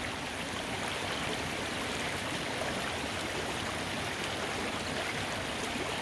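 Steady rushing of a flowing stream.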